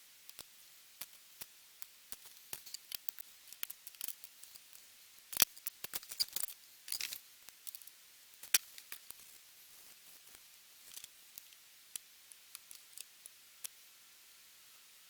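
Irregular sharp clicks and snips of small plastic model-kit parts being cut from the sprue and handled, with the loudest snaps about five and a half and eight and a half seconds in.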